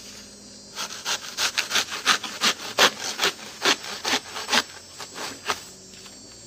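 Sawing into a banana plant's stem: quick back-and-forth strokes, about four a second, starting about a second in and stopping near the end.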